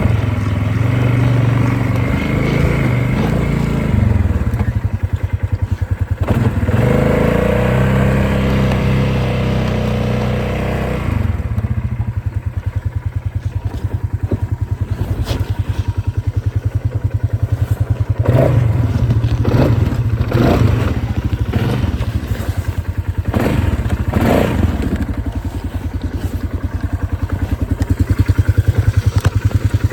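Polaris off-road vehicle engine running while riding a trail, the pitch rising and falling with the throttle for the first ten seconds, then settling to a lower, steadier run. Several sharp knocks from the vehicle jolting over the ground come past the middle.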